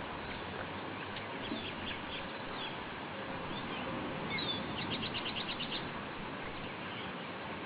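Small birds chirping over a steady background hiss, with scattered single chirps and, about halfway through, a quick run of about nine short high notes.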